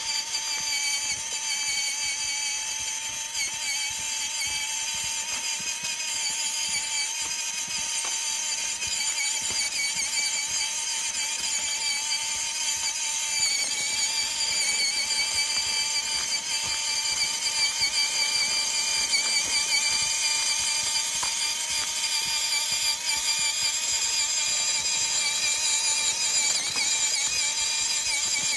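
MN99A RC rock crawler's electric motor and gearbox whining steadily as it drives, a high-pitched drivetrain whine that wavers slightly with speed.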